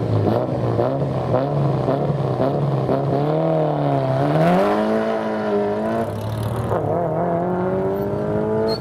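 Competition car's engine running under load, its pitch holding steady, then dipping and climbing twice as it accelerates through the gears.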